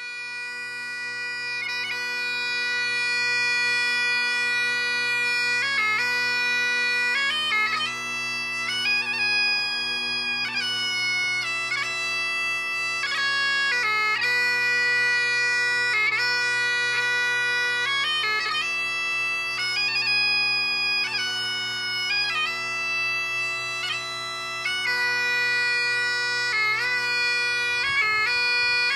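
Bagpipes playing a slow tune over their steady drones, fading in over the first few seconds.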